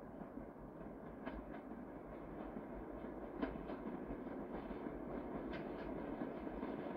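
Freight train pulling away slowly, a steady rumble that grows gradually louder. A few sharp clicks of wheels passing over rail joints come at uneven intervals.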